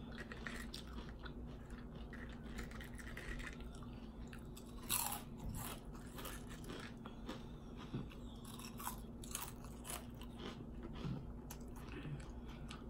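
A person chewing and smacking while eating French fries with ketchup, close to the microphone, with scattered short wet clicks. The loudest comes about five seconds in.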